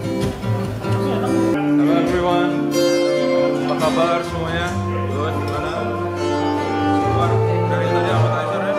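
Music with guitar; the music changes abruptly about one and a half seconds in.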